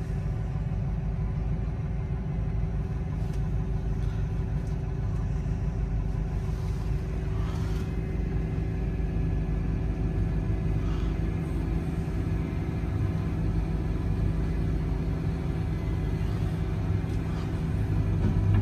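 Diesel tractor engines running steadily, heard from inside a tractor cab as a low, even hum. The sound grows a little louder near the end as the front-end loader tractor works close by to fill the lime spreader.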